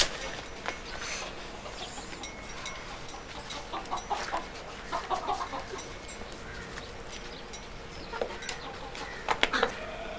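Chickens clucking, in runs of short, quick clucks about four to five seconds in, with a few sharp knocks about nine and a half seconds in.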